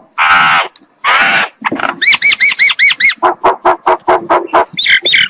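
Common myna calling: two harsh, rasping squawks, then a quick run of repeated whistled notes that rise and fall, followed by a fast series of short clipped notes, about six a second.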